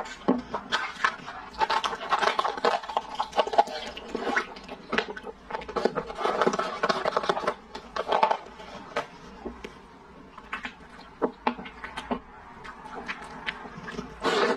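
Crinkling of a plastic pouch as it is handled and emptied over the bowl, then close-miked slurping and chewing of a milk-tea purple-rice dessert soup with tapioca pearls, heard as crackly stretches and scattered sharp mouth clicks.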